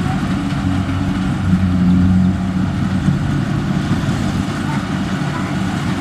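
Kubota DC-70Plus combine harvester's diesel engine running steadily as it cuts and threshes rice, a low drone that grows a little louder for about a second, about a second and a half in.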